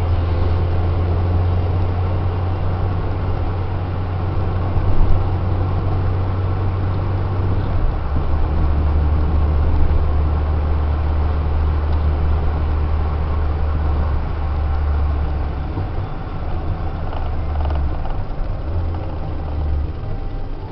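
Peugeot 205 Green 1.4's four-cylinder petrol engine droning steadily under way, with tyre and road noise, heard from inside the cabin. The drone dips slightly in pitch about eight seconds in and eases off near the end.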